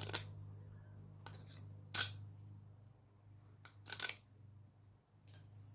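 A hand-forged steel scribe scratching a scrap piece of metal in a handful of short, sharp strokes to test its point. A low steady hum runs underneath.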